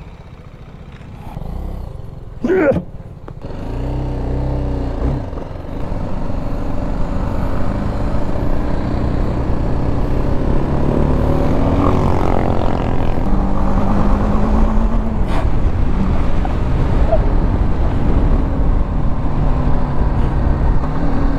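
BMW G310 GS single-cylinder motorcycle engine pulling away and accelerating along the road, its pitch rising and falling through the gears, under a steady rumble of wind and road noise. It starts a few seconds in, after a quiet start.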